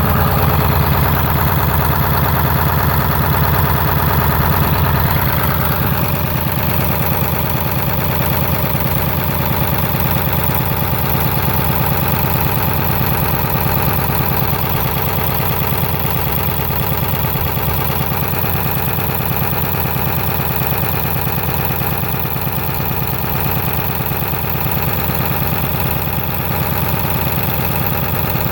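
Ford 7.3-litre V8 diesel idling roughly; the owner links the rough idle to blow-by. It runs steadily and gets a little quieter about six seconds in.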